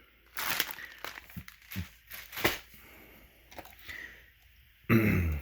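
Packaging being handled: scattered rustles and crinkles of plastic and cardboard, with a sharp click about two and a half seconds in. A short voice-like sound near the end.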